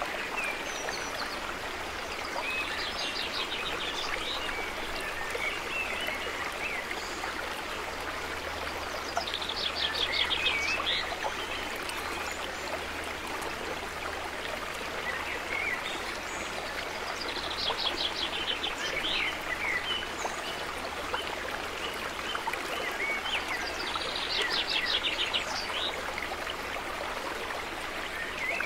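Steady sound of running water with birds chirping, a quick trilled call standing out about every seven seconds.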